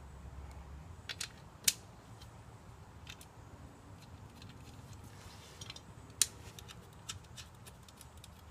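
Small metal hardware being handled: scattered sharp clicks and clinks of the bolts, nuts and washers for a split motorcycle rim, two of them louder, with a quick run of small ticks near the end, over a low steady hum.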